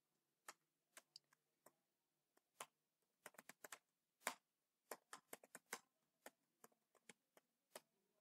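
Faint computer keyboard keystrokes as text is typed, clicking in irregular runs with short pauses between words.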